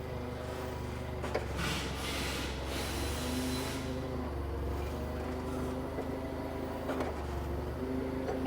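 A vehicle engine running steadily, a low hum with a few steady tones, with a brief rushing noise about two seconds in.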